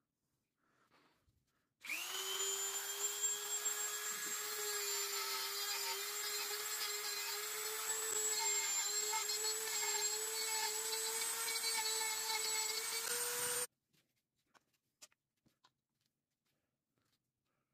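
Small high-speed power tool with a sanding disc spinning up and running steadily while sanding beechwood handle scales for a knife; its pitched whine creeps slightly higher and then cuts off suddenly.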